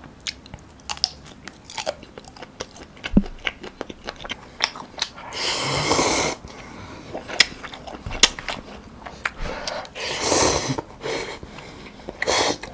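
Close-up eating sounds: biting and chewing a sausage with many small wet mouth clicks, then two long slurps of instant noodles, about five seconds in and again about ten seconds in, each followed by chewing.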